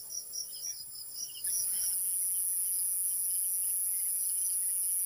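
Night insects: crickets chirping in quick repeated pulses, then a steady high-pitched insect drone that comes in abruptly about a second and a half in.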